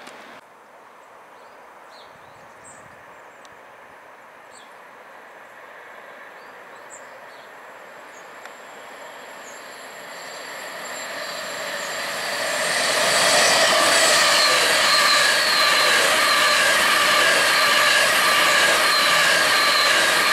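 Virgin Trains Class 390 Pendolino electric train approaching and passing at speed. It grows from faint to loud about halfway through, then gives a loud steady rush of wheels and air with a steady whine over it.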